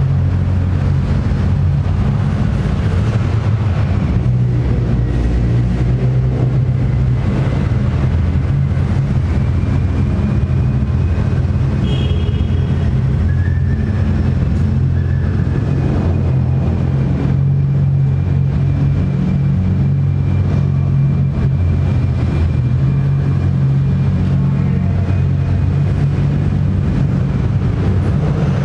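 Car engines and exhausts running at low revs as cars roll slowly past, a steady deep rumble inside an underground parking garage.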